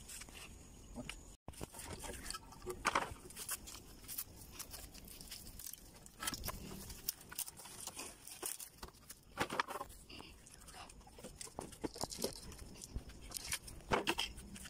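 Wooden formwork boards being worked loose from a freshly poured concrete post: scattered faint knocks and scrapes of wood, with a few sharper knocks now and then.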